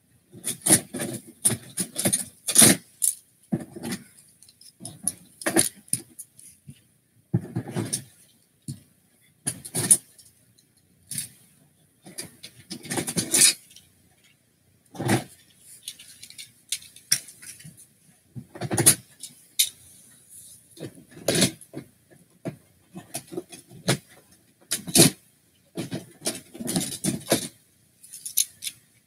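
Small hard-plastic toy figures clattering and knocking together as they are rummaged through and moved about, in irregular spells of rattling with short pauses.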